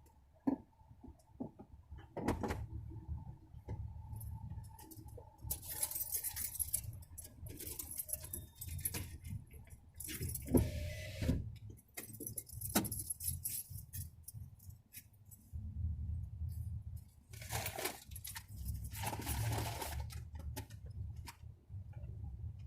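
Metallic jangling and clattering in several short bouts, with scattered clicks, over a steady low rumble.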